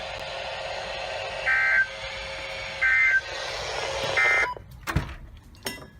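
Emergency Alert System end-of-message data tones: three short warbling digital bursts, each a fraction of a second long and about a second and a half apart, over a steady radio hiss. Near the end the hiss cuts off and a couple of clicks follow.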